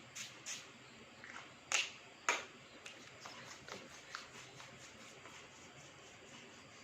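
Hand-hygiene handling sounds: a few sharp clicks and taps, the loudest two about half a second apart near two seconds in, then lighter ticks over faint rustling of hands.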